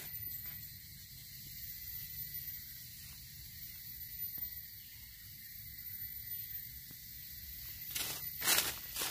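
Steady high-pitched hiss of the forest background. About eight seconds in, dry leaf litter crackles in a quick cluster as a hand digs into it.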